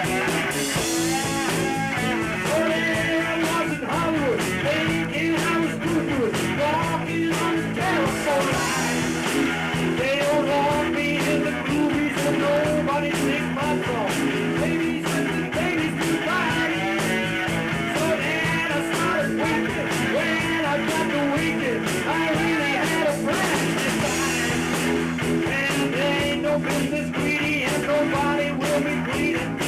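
A rock band playing live at a rehearsal: electric guitar and drums with singing, the song running steadily.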